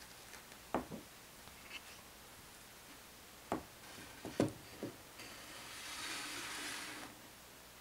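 Faint scattered knocks and clicks, then a soft rustling hiss lasting about two seconds.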